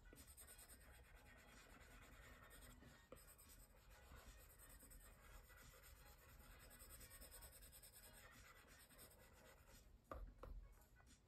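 Faint scratching of an Apple Pencil tip stroking across the iPad's glass screen as colour is brushed in, with a brief louder handling noise about ten seconds in.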